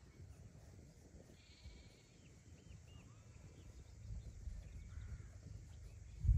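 Sheep and lambs bleating faintly in an open pasture. Under them runs a low rumble of wind on the microphone, with a few short bird chirps.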